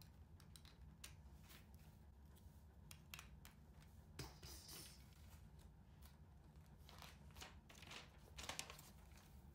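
Faint, scattered clicks of plastic LEGO bricks being pressed together and handled, with brief light rustling between them and a paper rustle near the end, typical of an instruction booklet being handled.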